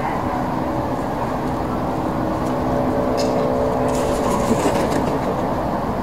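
Steady low rumble of a vehicle engine with a level hum running through it, and a few light ticks in the middle.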